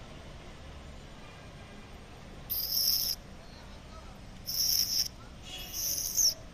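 An insect calling in short high-pitched buzzing bursts, three in all, each about half a second long, starting about two and a half seconds in, over faint steady outdoor background noise.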